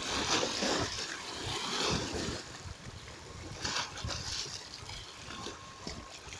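Waves washing up and splashing against concrete steps at the edge of a dam reservoir, with louder surges in the first two seconds and again about four seconds in.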